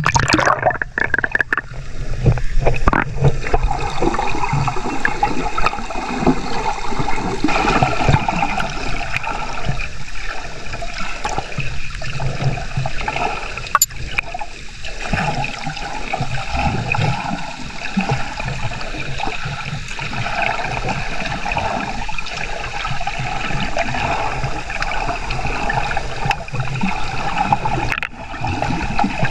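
Sea water sloshing and gurgling around a snorkeler's waterproof action camera at the surface, a continuous churning wash.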